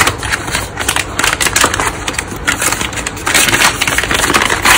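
Metallised foil packaging bag crinkling and crackling as it is pulled out of a cardboard box, the box rustling along with it: dense, irregular crackle throughout.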